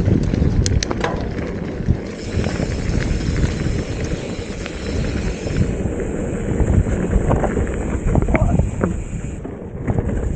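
Mountain bike riding a trail: wind buffeting the microphone over a steady rumble of tyres, with scattered clicks and rattles from the bike.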